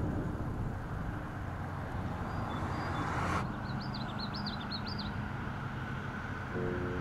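Wind rumbling on the microphone outdoors, with a small songbird singing one short warbled phrase about halfway through. Soft held music tones come in near the end.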